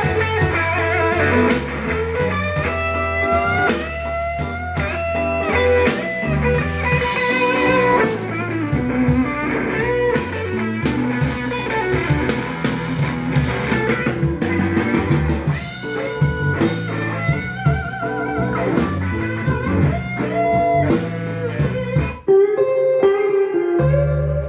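Blues recording with electric guitar lines over a steady bass, no vocals. Near the end it drops out briefly, then comes back in.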